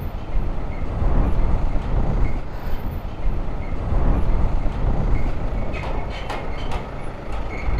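BMW G310 GS single-cylinder motorcycle engine running as the bike rolls slowly at low speed, a steady low rumble.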